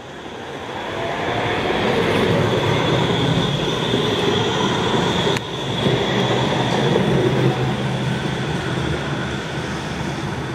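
A tram running on its rails, growing louder over the first two seconds, with a steady high-pitched wheel squeal over the rumble of the running gear.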